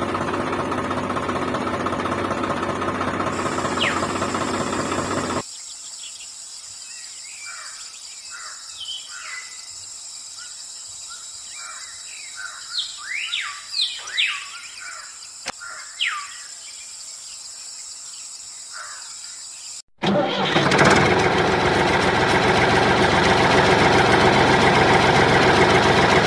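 A toy tractor's small motor running steadily, stopping after about five seconds. Birds then chirp over a faint steady hiss until the motor runs again, louder, from about twenty seconds in.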